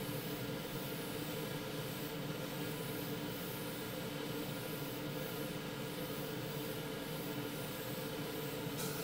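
Airbrush spraying paint at low pressure, about 10–12 psi: a steady hiss of air, with a low steady hum underneath.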